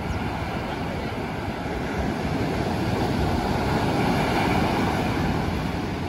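Sea surf: waves breaking over rocks and washing up a sandy beach, a steady rush that swells to its loudest about four seconds in, then eases.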